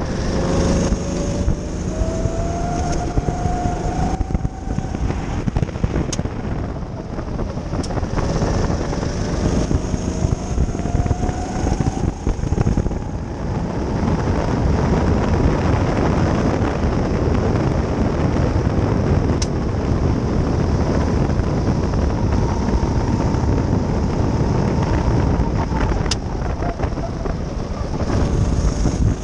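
Go-kart engine heard from the driver's seat under race throttle. Its pitch climbs as the kart accelerates out of the corners, holds high along the straight, then drops near the end as it slows for the next bend. Heavy road and wind rumble runs underneath, with a few brief clicks.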